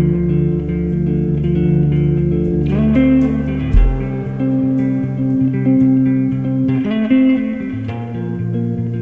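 Instrumental rock music led by guitars and bass guitar, with no singing.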